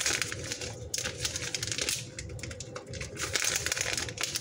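A small white packet crinkling and crackling as fingers work at its top edge, a dense, irregular run of small crackles.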